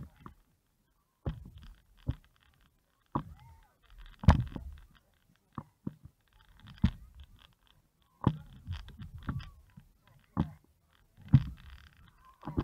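Dull thumps about once a second from a person doing pushups on an inflatable stand-up paddleboard, each followed by a short hiss.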